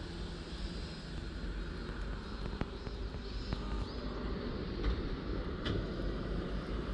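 Steady low rumble of distant road traffic mixed with wind on the microphone, with a few faint clicks.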